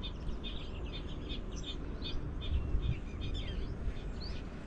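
Small birds chirping and calling: many short high chirps and quick up-and-down notes, scattered and overlapping, over a steady low rumble.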